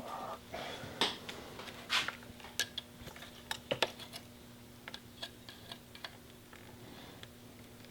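Irregular light clicks, taps and short rustles of hands working a BMW R1100RT's throttle cable distribution box loose from a tight mounting, with the sharpest knocks about one, two and nearly four seconds in.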